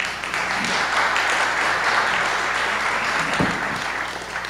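Audience applauding, the clapping steady for a few seconds and fading away near the end.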